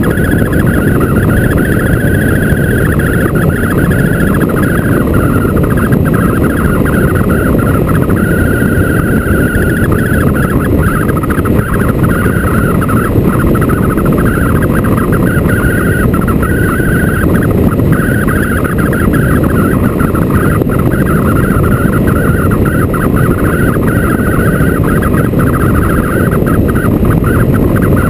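Motorcycle riding at speed: a loud, steady rush of wind and road noise with a higher wavering whine over it.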